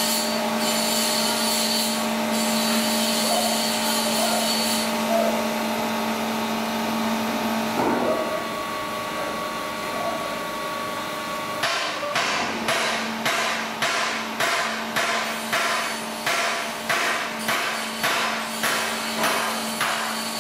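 Plate rolling machine running with a steady motor hum as it rolls a 10 mm steel plate into a pipe. About halfway through, sharp knocks start and repeat evenly, about one and a half a second.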